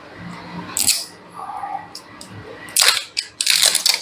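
Cap of a plastic condiment bottle being twisted and worked open by hand: short bursts of clicking and scraping, a brief one about a second in and a denser run of clicks near the end.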